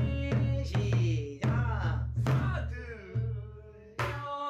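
Pansori singing: a voice holds long, wavering notes and slides between pitches, accompanied by several sharp strokes on a buk barrel drum.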